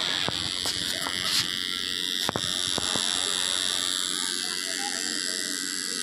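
Small DC toy motor spinning a plastic propeller: a steady high-pitched buzzing whine, with a few light clicks over it.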